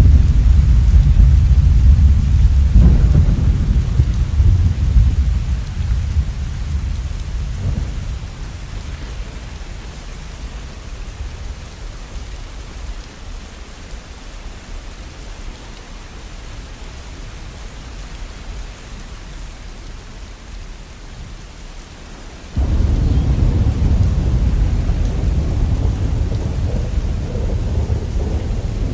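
Rain falling steadily through a thunderstorm. A deep roll of thunder fades away over the first ten seconds or so, and another loud rumble sets in abruptly about 22 seconds in.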